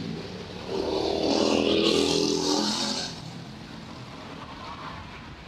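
A bus passing close by, its engine and rushing road noise swelling for about two seconds and then fading.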